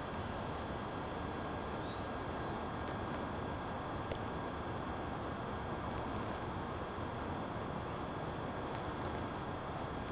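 Steady outdoor background noise, a low rumble with hiss, with faint short high chirps scattered from about three seconds in and one faint click about four seconds in.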